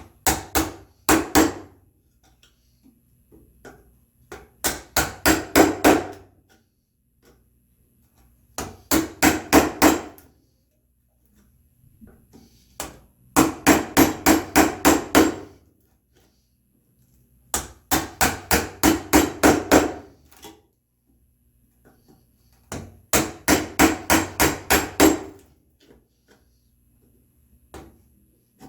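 A chisel driven by repeated mallet blows, chopping a mortise in red oak: runs of quick, evenly spaced strikes, about four or five a second, in roughly six bursts with pauses of a few seconds between them.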